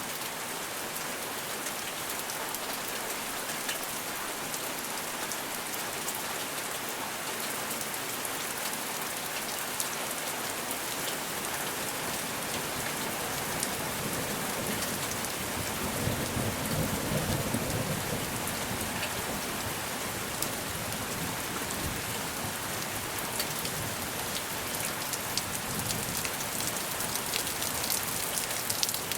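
Steady rain falling in a constant hiss, with fine patter of individual drops. A low rumble of thunder rises and fades a little past the middle.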